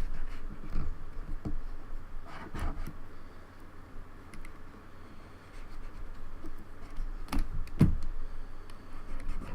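Keys of a Logitech K360 keyboard clicking irregularly as they are pressed and worked with an alcohol-soaked cotton swab, with some scratching. There are two louder knocks near the end.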